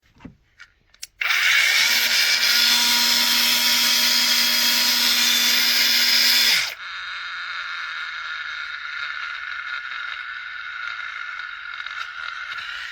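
Cordless mini angle grinder running: a few light clicks, then a loud steady run for about five seconds that drops suddenly to a quieter steady run.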